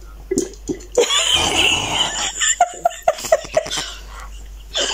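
A person coughing and spluttering, then a quick run of short laughs.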